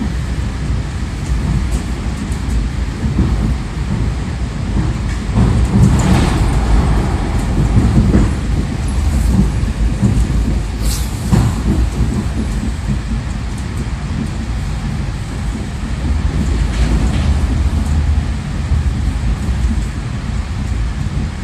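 Suburban electric multiple-unit train (elektrichka) under way, heard from inside the carriage: a steady low rumble of wheels on rail. A few sharper clatters or squeals stand out, the clearest about eleven seconds in.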